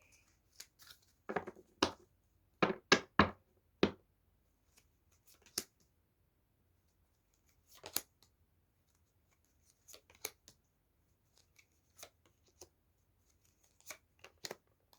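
Tarot cards being handled and laid down on a table: a quick run of sharp taps and slaps in the first few seconds, then scattered single clicks.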